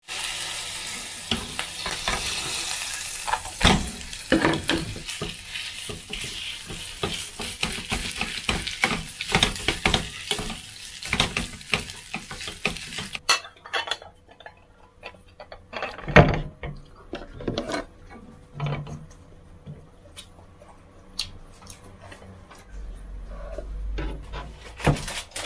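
Oil sizzling in a frying pan as egg, dried shrimp and green onion are stir-fried, with the utensils scraping and clacking against the pan. About halfway through, the sizzle drops away, leaving quieter scrapes and taps.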